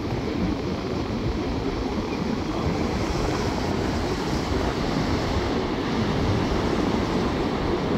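Ocean surf breaking and washing up the beach, a steady rushing noise heavy in the low end.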